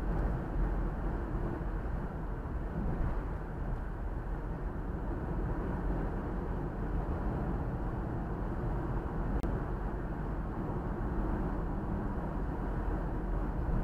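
A car driving along at a steady speed: continuous, even road noise from the tyres and engine, deep and low-pitched, with no gear changes or other events.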